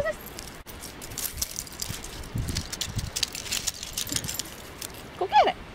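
Small clicks and rustles of handling, then about five seconds in a dog's short yip that rises and falls in pitch, the loudest sound here.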